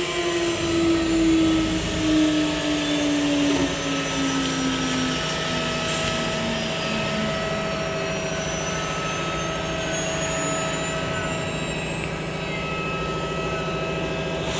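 Stone CNC router running with a steady machine hum. Its spindle whine falls steadily in pitch over the first several seconds as it slows, and a faint high whine rises in the second half.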